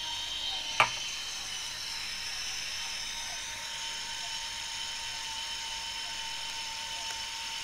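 Olympus IZM300 compact film camera's built-in motor rewinding the film into its cassette: a steady whine with several high tones, and one sharp click about a second in. The frame counter is counting down to 1, so the rewind is nearly done.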